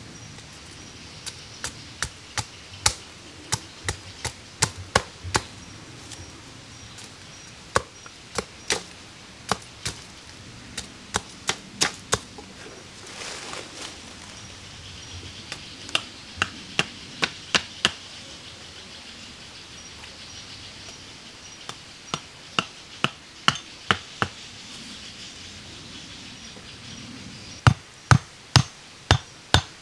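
Hand tool repeatedly striking wood, sharp single chops or knocks in runs of several at about two to three a second, with pauses between runs. The last run, near the end, is louder and quicker.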